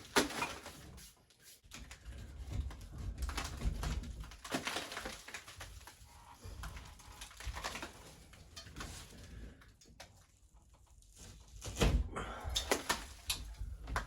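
Wet, crumbling drywall being handled and broken apart by hand: irregular crackling and scraping, with a louder knock about twelve seconds in.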